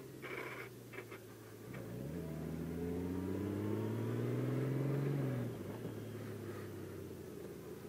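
2019 Honda Gold Wing Tour DCT's flat-six engine pulling away at low speed: its note climbs steadily for about three seconds, then falls back about five seconds in.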